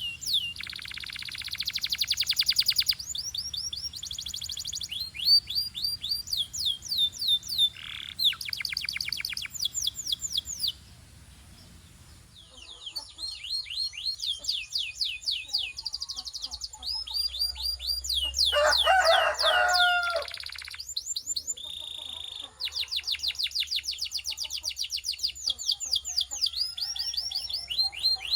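Canary singing: long trills of quickly repeated, rapidly falling high notes, phrase after phrase at changing speeds. There is a short lull a little before halfway, and a lower, rougher phrase about two thirds of the way through.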